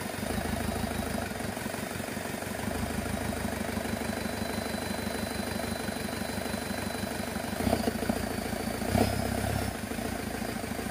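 Isuzu Trooper's 4JX1 four-cylinder turbodiesel engine idling steadily, with two brief louder swells near the end. This is the engine being diagnosed for a knocking sound.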